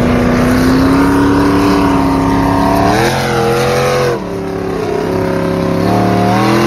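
Pulling tractor's engine running hard as the tractor is driven fast down a road and comes up close. Its pitch holds and rises a little, wavers and drops about four seconds in, then climbs again near the end.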